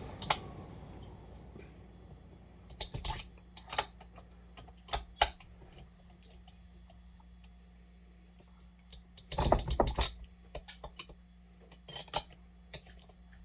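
Scattered light clicks and clinks of hand tools and metal parts during chainsaw reassembly, with a short cluster of knocks about nine and a half seconds in.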